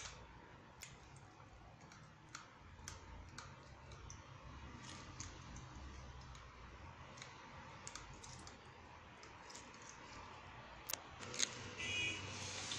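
Faint, scattered light clicks and taps as grated red onion is pressed and squeezed through a strainer to draw out its juice, with a slightly busier cluster of taps near the end.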